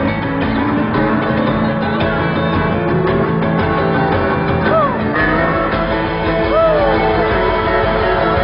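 Live rock band playing: electric guitars, bass, drums and keyboards, heard from the audience through a phone's microphone. A lead guitar bends notes up and back down about halfway through and again a couple of seconds later.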